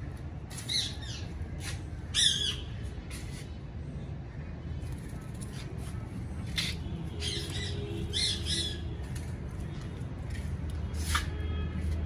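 Ringneck parakeet giving short, harsh squawks, about six of them spread out, the loudest about two seconds in, over a steady low hum.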